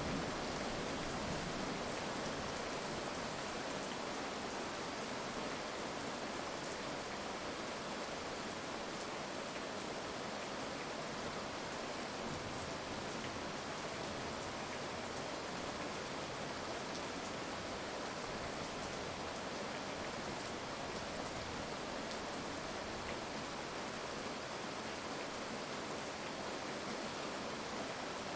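Steady heavy rain: an even hiss of rainfall with scattered drop ticks and no thunder.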